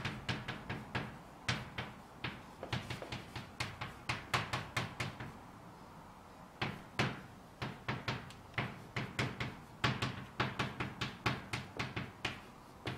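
Chalk writing on a blackboard: quick clusters of short taps and scrapes as characters are written, with a pause of about a second and a half midway.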